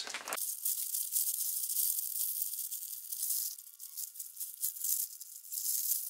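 Plastic hazmat suit crinkling and rustling as it is pulled on, a dense crackle of stiff coated fabric.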